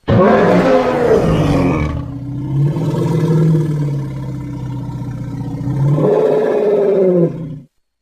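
Indian rhinoceros roar sound effect: one long, rough bellowing call that starts abruptly, sinks to a lower, steadier drone about two seconds in, swells again near the end and then cuts off suddenly.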